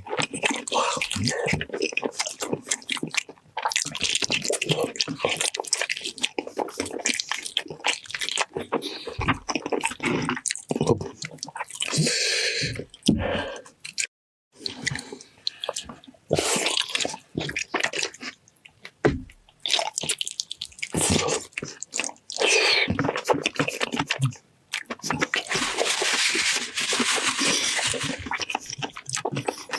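Close-miked eating of braised beef feet: wet, sticky chewing and lip-smacking on gelatinous skin and tendon, a dense run of irregular smacks and clicks, cut off briefly about halfway through.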